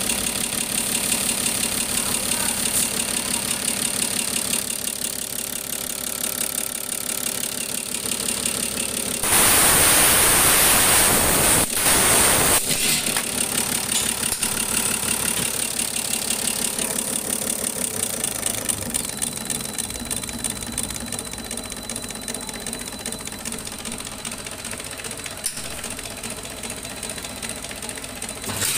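Diesel injection pump test bench driving a Stanadyne rotary injection pump during a calibration test: a steady mechanical running with a high whine. About nine seconds in, a loud rushing hiss lasts about three seconds, and a click comes near the end.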